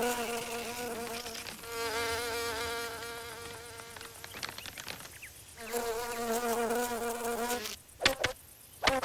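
Cartoon ladybug's flight buzz: a steady, slightly wavering buzzing drone that comes in three passes with short gaps between them. Near the end it breaks off into a few sharp clicks as the ladybug touches down.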